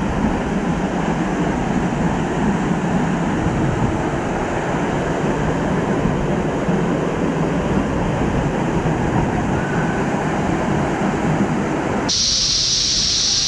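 Cummins Falls waterfall pouring into its pool at close range: a loud, steady, dense rush of falling water. About twelve seconds in, it changes abruptly to a thinner, hissier rush.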